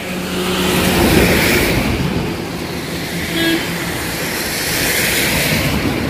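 Heavy monsoon rain pouring down, a dense hiss on the wet road and vegetation that swells louder about a second in and again near the end.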